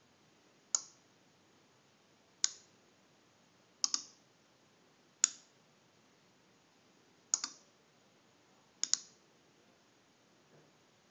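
Small circuit-board relays on a four-channel prop controller clicking as they switch on and off while it plays back a recorded sequence. About six sharp clicks at uneven intervals, three of them doubled, and a faint one near the end.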